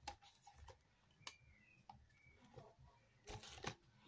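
A metal teaspoon working in cornflour over a plate of mashed potato: a couple of faint clicks, then near the end a short scraping burst as another spoonful is scooped.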